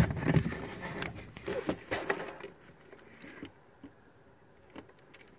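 Handling noise: scattered knocks and rustles as a cordless drill is brought into position in a small compartment, dying away to near quiet for the last few seconds before drilling.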